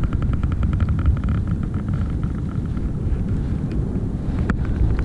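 Steady low rumble of wind on the microphone at the shore. A run of quick faint ticks sounds over the first couple of seconds, and a single sharp click comes about four and a half seconds in.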